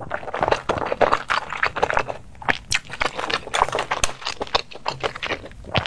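Close-miked eating: a person chewing and crunching food, a dense, irregular run of short crunches and wet clicks.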